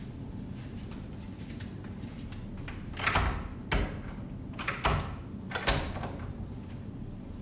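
An interior door being pushed and shaken against its frame: a series of knocks and thuds starting about three seconds in, four or five in all over the next few seconds.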